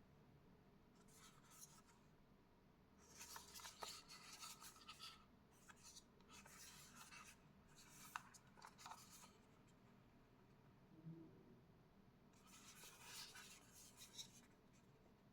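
Faint rustling and rubbing of packaging being handled during an unboxing, in several short bouts, with a couple of small sharp clicks about four and eight seconds in.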